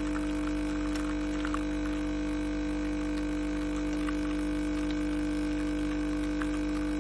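Pod coffee machine humming steadily as its pump runs through a brew, a level drone with no breaks and a few faint ticks.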